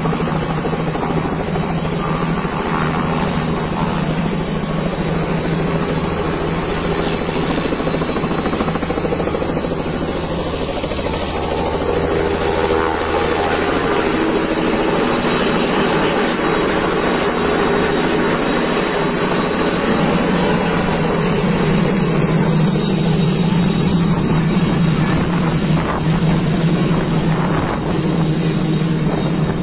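Robinson R66 helicopter's turboshaft engine and two-blade main rotor running loud and steady at takeoff, as the helicopter lifts off from the ground and hovers. A deeper low layer in the sound drops away about halfway through.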